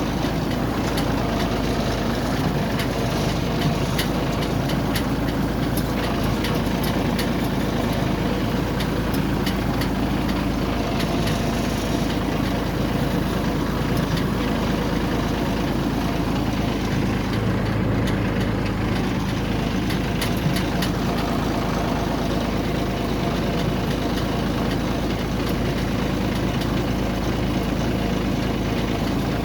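Yanmar combine harvester running steadily, its diesel engine and machinery making an even, unchanging drone.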